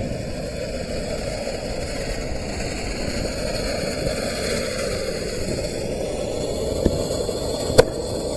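Ground fountain firework spraying sparks with a steady rushing hiss, with a sharp crack near the end.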